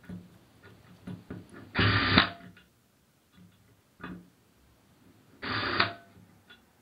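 A pistol-grip torque screwdriver runs in two short bursts of about half a second each, driving screws, with a few light clicks and taps in between.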